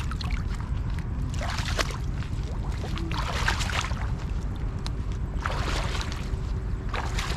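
Shallow lake water splashing and sloshing in four short bursts, over a steady low rumble.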